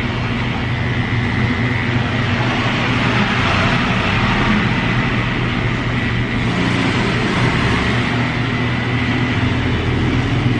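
Electric hair clipper running with a steady buzz while it is passed over a toddler's head to cut his hair short.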